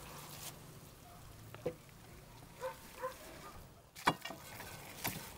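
Roasted whole lamb being torn apart by hand and set on a ceramic plate: a few sharp knocks and clicks, the loudest about four seconds in and another a second later. Two short pitched calls sound about three seconds in.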